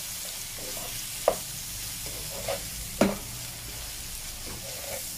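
Spatula stirring brinjal pieces, tomato and ground spices in a frying pan over a steady sizzle of frying, with two sharp knocks a little over a second in and again about three seconds in.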